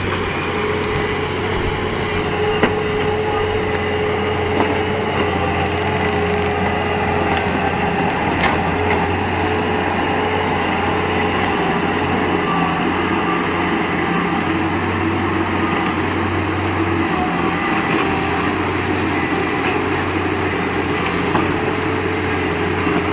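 An engine running steadily with a constant hum, with a few light clicks and knocks over it.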